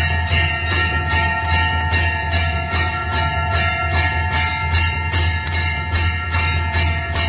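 Temple bell rung continuously, struck about three times a second so its ringing overtones carry on under each new stroke, over a steady low hum.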